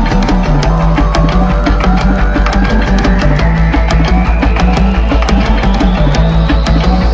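Loud electronic music with heavy bass and a fast, even kick-drum beat, and a high synth tone rising steadily in pitch.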